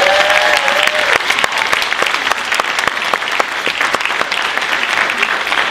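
Audience applauding, a dense, even clatter of many hands clapping, with a voice calling out over it in the first second.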